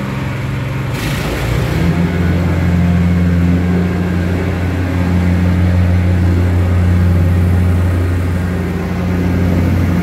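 Vibratory plate compactor running steadily, its engine and vibrating plate working as it compacts a crushed-stone screenings fill. Its note shifts about two seconds in, then holds steady.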